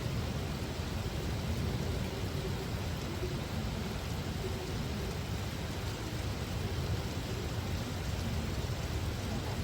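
Heavy rain pouring steadily, an even hiss over a constant low rumble.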